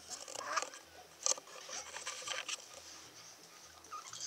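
A two-month-old baby gives a brief soft coo about half a second in. After that come a few faint clicks and rustles, with the baby quiet.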